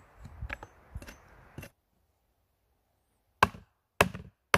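Small hatchet chopping wood. First come a few light cuts into a log. After a pause there are three sharp, hard chops, about half a second apart, into a branch resting on a stump.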